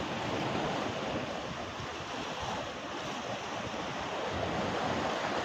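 Sea surf washing steadily against the shore, with some wind on the microphone.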